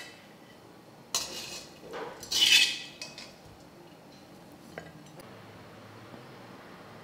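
A perforated metal serving spoon scraping and clinking against a metal karahi and a plate as chicken pieces are scooped out and served. There are three short bouts in the first three seconds, the loudest about two and a half seconds in, and a light click near five seconds. Then only faint room hum.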